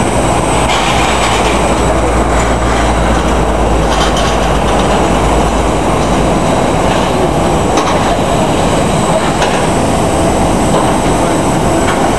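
Steady loud roar of jet aircraft noise with a faint high turbine whine. A heavy low rumble eases off about halfway through.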